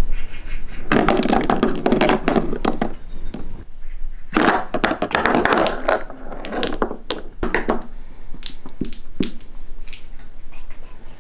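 Small toy billiard balls knocking together and rattling on a tabletop pool table as a cat bats them with its paw: two spells of rapid clattering, then a few single clicks near the end.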